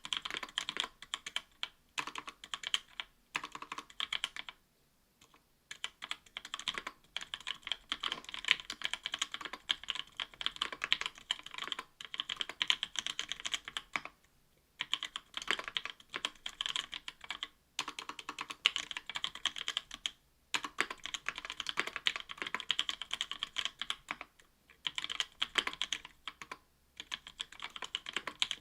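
Fast typing on a mechanical keyboard with lubed NovelKeys Cream linear switches, an aluminium plate and GMK keycaps: a dense clatter of key strikes in bursts with brief pauses between them.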